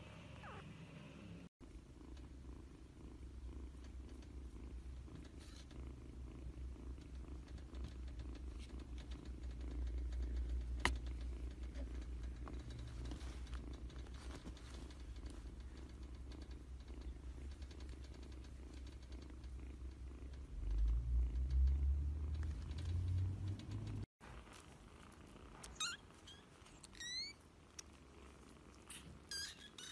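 Kitten purring close to the microphone: a steady low rumble that swells and carries on for about twenty seconds, then cuts off. After it come a few short, high-pitched kitten squeaks.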